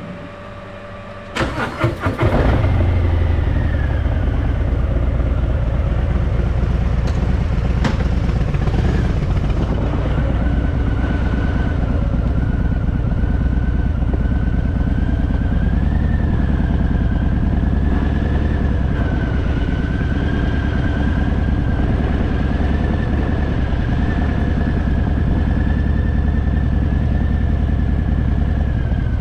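Harley-Davidson Fat Boy's V-twin engine cranking and catching about a second and a half in, then running at a steady idle.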